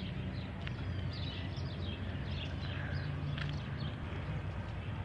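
Small birds chirping in short, scattered calls over a steady low hum.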